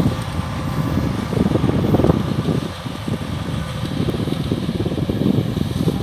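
Kubota DC-105X combine harvester running, its diesel engine and machinery making a continuous low rumble.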